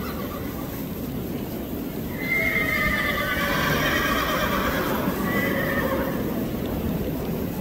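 Thoroughbred racehorse whinnying: one long, wavering neigh starting about two seconds in and lasting about four seconds. It is the call of an excited debut horse that keeps neighing in the paddock.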